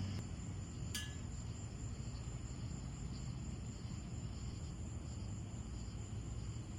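Crickets chirping steadily over a low background rumble, with one short click about a second in.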